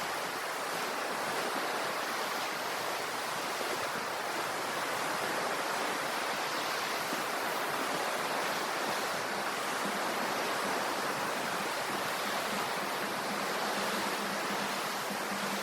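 Ocean surf washing steadily, with no distinct breaks between waves. A faint low hum joins in a little past halfway.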